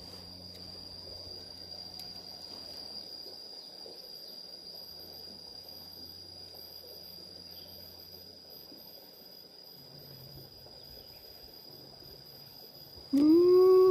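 An insect, likely a cricket, trills steadily at one high pitch over faint riverside background noise. Near the end a loud pitched call rises and falls for about a second.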